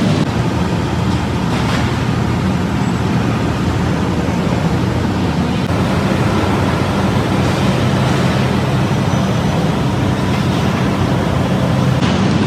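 Steady, loud din of heavy factory machinery: a continuous low hum under a rushing noise, with no distinct knocks or strokes.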